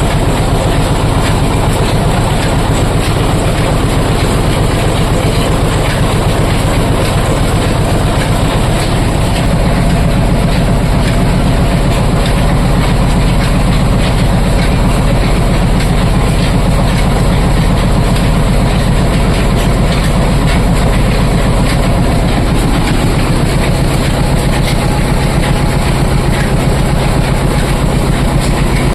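Oil expeller machine running: a loud, steady mechanical drone with a fast, even rattle.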